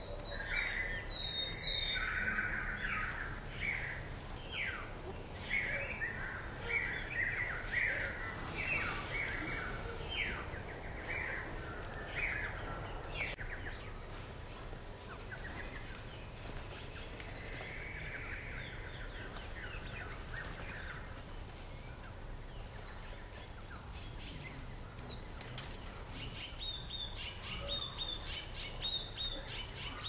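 Small songbirds chirping and calling around a seed feeder, many short chirps in quick succession through the first dozen seconds, quieter after, then a quick run of high repeated notes near the end. A low steady rumble lies underneath.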